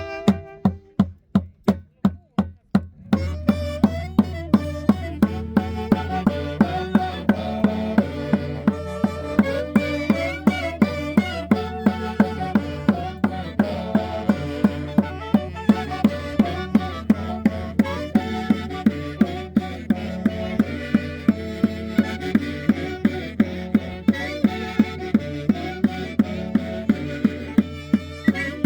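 Andean band playing a caña y quinto tune: for about three seconds only a steady drumbeat sounds, then the full ensemble comes back in with melody over a steady low bass, the drum keeping the same even beat.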